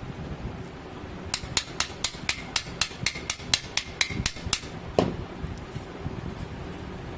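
Rapid light taps, about four a second for some three seconds, then one heavier knock, over a steady background hiss.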